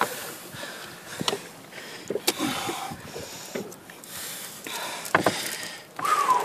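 Handling noise: scattered knocks and rubbing as hands work cord around a dead alligator's legs against a boat's deck.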